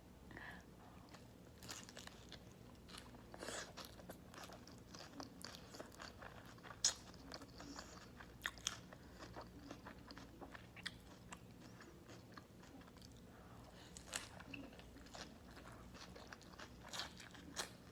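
Close-miked eating: crisp crunching bites into a beef burger wrapped in raw cabbage leaves, with chewing between them. The crunches come irregularly, the loudest about seven seconds in.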